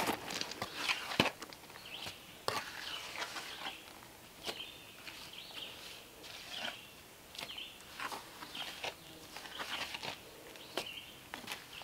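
Mortar being pressed and scraped between cordwood log ends: irregular short scrapes and knocks of a tool and gloved hands. Short high chirps of a small bird repeat about once a second behind it.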